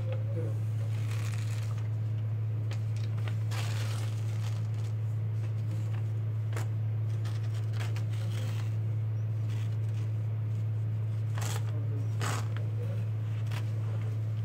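A piece of card scraping and smoothing wet sand spread in a metal tray, in a few short, scratchy strokes, over a steady low hum.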